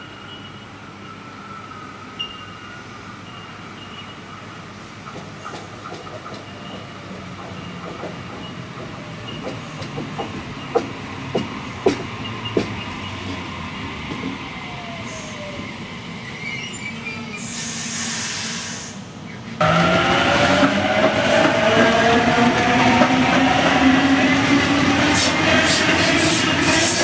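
A Sydney Trains Waratah double-deck electric train. Its traction motor whine falls slightly in pitch as it comes into the station, and its wheels click over rail joints, with a short burst of hiss. Then the sound abruptly gets much louder, and a whine of several tones rises in pitch as the train accelerates away, with wheel and rail noise.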